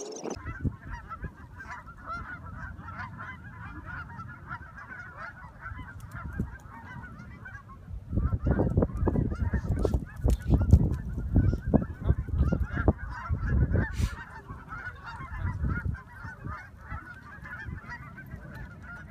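A large flock of geese honking continuously, many calls overlapping. A low rumble, heaviest from about 8 to 14 seconds in, runs underneath.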